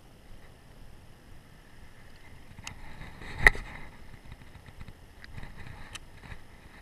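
Fishing gear handled in a small boat: one sharp knock about halfway through, the loudest sound, with a few fainter clicks before and after it over a low background hiss.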